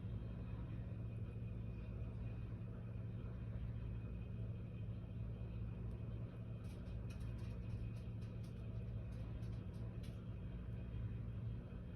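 A steady low mechanical hum, with a run of faint, short crackles about seven to ten seconds in.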